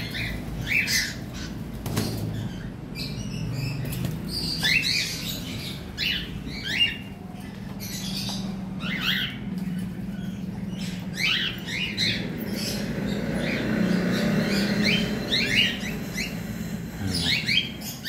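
A flock of cockatiels calling, many short chirps and squawks overlapping one another, over a low steady hum.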